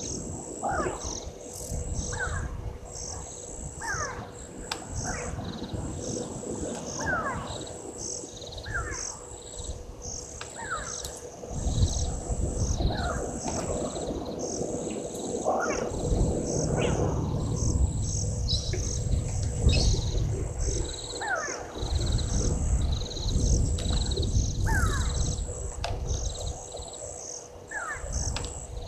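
Waterhole bush ambience: a bird repeats a short, falling call about once a second over a steady, pulsing high chorus of insects. From about twelve seconds in there are stretches of low rumble.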